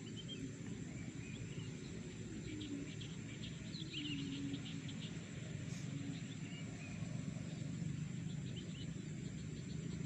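Marsh ambience: a steady low rumble with faint bird chirps and, a few seconds in, a brief run of soft quick ticks.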